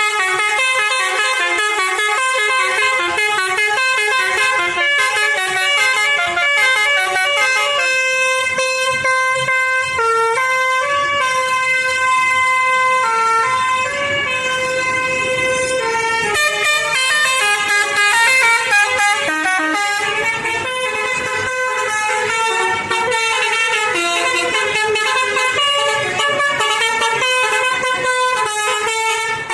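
Basuri telolet horns, a set of roof-mounted trumpet air horns on a tour bus, playing a loud melody of held notes. Several notes sound together as chords, and the pitch shifts from note to note without a break.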